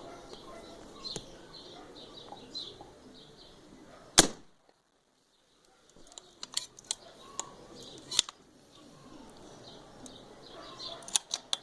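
A .22 Kalil PCP air rifle fires one sharp shot about four seconds in, the regulated rifle's first shot of a chronograph string. A few lighter clicks come before and after it, and birds chirp faintly in the background.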